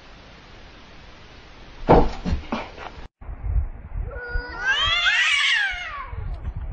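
A few loud thumps, then a cat's long caterwaul, a yowl that rises and then falls in pitch, the territorial yowling of two cats squared off face to face.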